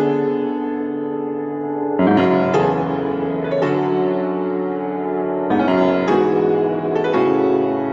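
Solo piano playing a slow passacaglia: full chords struck one after another, each left to ring and fade before the next.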